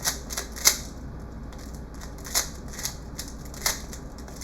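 Speed cube being turned by hand: a run of irregular plastic clicks and clacks as the layers turn, with a few louder snaps scattered through.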